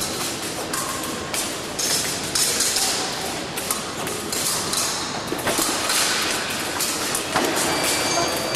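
Épée fencers' footwork on the piste: repeated thuds and stamps of feet, with scattered taps and clicks, over the steady noise of a busy competition hall.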